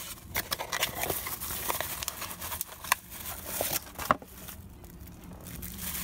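Cardboard box and plastic bubble wrap crinkling and rustling as a packaged part is taken out and unwrapped: irregular crackles for about four seconds, a sharp click, then quieter handling.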